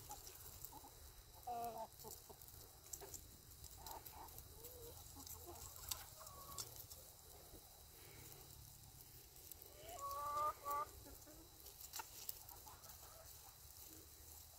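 Backyard chickens clucking softly every few seconds as they feed, with the loudest call, a short rising cluck, about ten seconds in.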